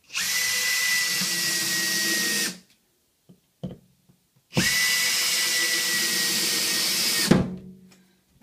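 Cordless drill turning a screw in a wooden block on the floor, running in two steady runs of about two and a half seconds each with a pause between, and a short knock as the second run stops.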